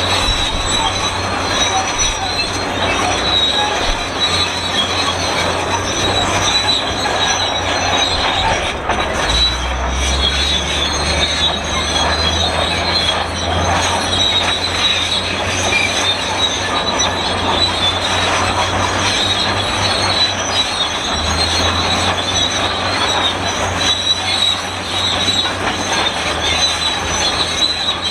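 Shantui SD32 crawler bulldozer squeaking and squealing metal-on-metal as it works, with a continuous high squeal over the low drone of its engine. The squeaking sounds like an unoiled cart, a sign of dry, unlubricated running gear.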